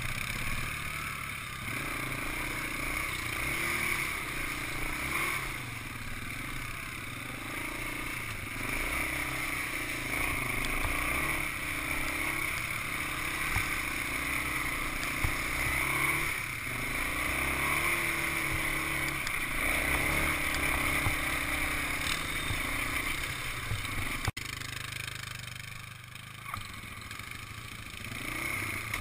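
Yamaha ATV's single-cylinder four-stroke engine running under changing throttle on a rough, muddy trail, its pitch repeatedly rising and falling as it revs and eases off. After a sudden break about 24 s in it is quieter, then rises again near the end.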